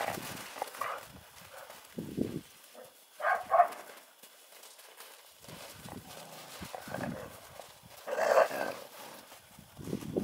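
Dogs and puppies scuffling and running in snow, paws thudding and crunching, with two quick yaps about three seconds in and a louder bark about eight seconds in.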